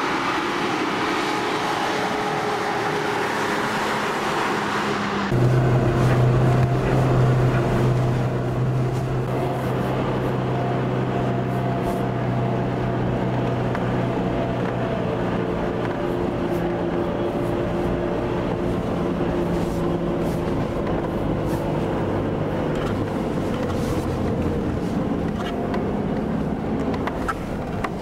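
An engine running steadily. About five seconds in its sound changes suddenly to a deeper, louder note that eases back after a few seconds.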